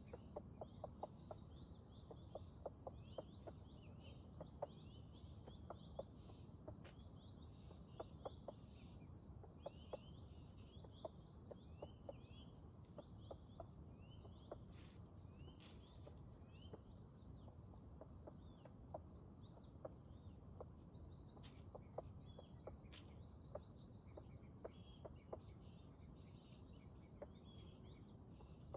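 Faint plantation ambience of insects: a steady high-pitched drone with many quick chirps over it, and scattered soft ticks throughout.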